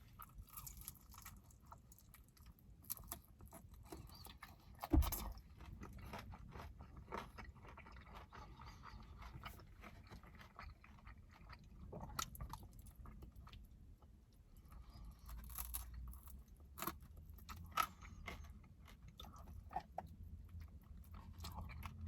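Close-up chewing and biting of sticky chicken wings, with small wet clicks and crunches and a louder knock about five seconds in.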